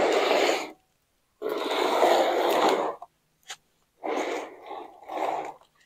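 Black plastic seedling trays scraped across a concrete patio in several short pushes, with the plastic sheeting over the table rustling as it is lifted. There is a brief click about halfway through.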